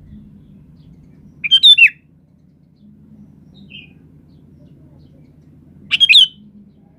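Sooty-headed bulbul singing: two short, loud, warbled phrases about four seconds apart, with a faint short note between them, over a faint low hum.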